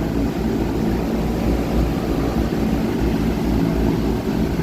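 Liebert condenser's newly replaced fan motor running steadily once the unit calls for cooling, its blades moving air in a steady rush with a low rumble.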